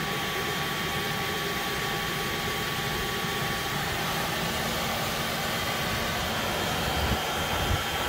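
1990 Isuzu Impulse XS's four-cylinder engine running steadily, heard from underneath by the exhaust as a steady hiss and rumble with a faint whine, with a few low bumps near the end. Soapy water bubbling on the front exhaust pipe shows the exhaust is still leaking there.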